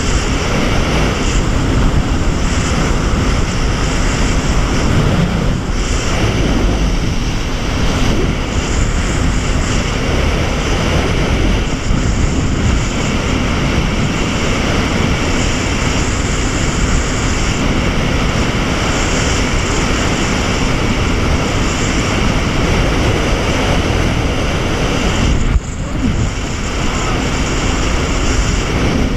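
Jet ski running at speed: a steady engine drone mixed with rushing water from the wake and wind buffeting the microphone. It dips briefly near the end.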